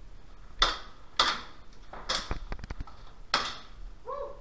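Airsoft gun fired in single shots: four sharp cracks at uneven intervals, each with a short echo, and a quick run of light clicks between the third and fourth.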